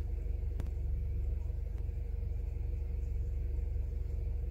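Vehicle engine idling, a steady low rumble with a fast even pulse, and a single light click of a scan-tool button about half a second in.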